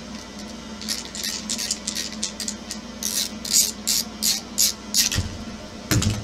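Hand driver turning a screw out of a plastic RC crawler chassis: a run of short scraping squeaks, about three a second, then two dull knocks as the chassis is handled near the end.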